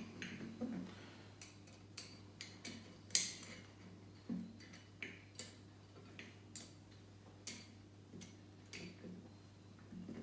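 Sharp metallic clicks and clinks of a wrench and steel jack parts being handled, at irregular intervals, with one louder clank about three seconds in.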